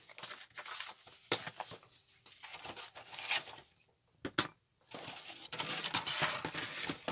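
Paper instruction sheets and a model kit box being handled and shifted: uneven rustling and light knocks, with a sharp tap about four seconds in and denser rustling near the end.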